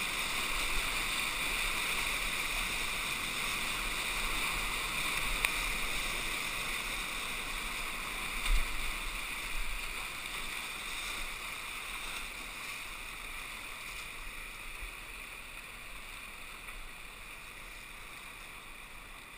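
Whitewater rushing around a kayak running a rapid, a steady rush that slowly fades as the boat reaches calmer water near the end. A couple of short low thumps come about eight and nine seconds in.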